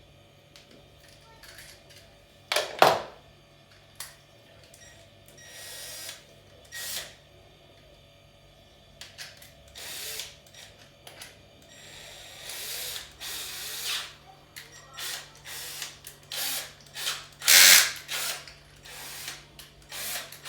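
Intermittent short runs of a power drill or screwdriver on washing machine parts, with knocks and clatter of the parts being handled. Two sharp knocks stand out, about three seconds in and near the end.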